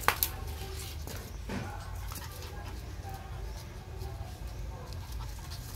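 A sharp slap right at the start as a puppy swings a rubber flip-flop against concrete, then softer scuffing and gnawing on the slipper.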